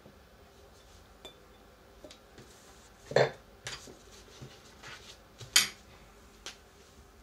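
Tableware handled on a wooden tabletop: a wine glass set down and things moved about, with two sharp knocks about two and a half seconds apart and a few lighter clicks and taps.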